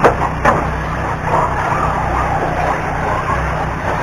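Electric RC truggies racing on a dirt track: a continuous wavering whir of brushless motors and tyres. Two sharp knocks in the first half second.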